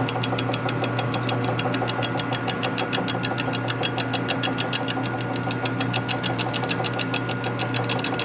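Metal lathe running with a steady hum while the cutting tool ticks rapidly and evenly against the turning part, about ten light ticks a second, starting right at the beginning. The tool is catching the part's high spot once per turn, leaving witness marks that show how far the bowed part runs out of true.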